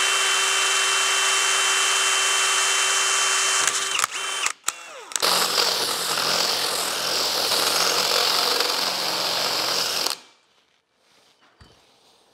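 Cordless drill boring through metal EMT conduit. The motor runs steadily for about four seconds and pauses briefly. It then runs again with a rougher, noisier sound for about five seconds and stops about ten seconds in.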